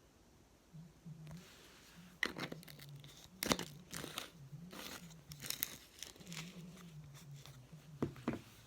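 Slime being squeezed and worked by hand, making irregular crackles, pops and crunchy squishes.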